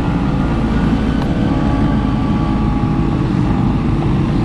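Classic two-stroke Vespa scooter engine running while riding, its pitch wavering slightly, over a heavy steady low rumble of road and wind noise.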